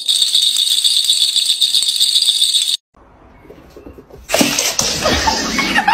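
A toy dangled on a string rattles quickly and steadily as a kitten bats at it, then cuts off abruptly about three seconds in. After a short lull, a loud rough rustling noise starts near the end.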